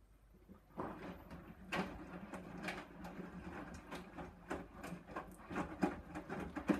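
Hoover Dynamic DYN 9164 D8PX washing machine's drum starting to turn about a second in, mid-wash on a Rapid 30 programme: a steady motor hum with irregular clicks and knocks from the tumbling load.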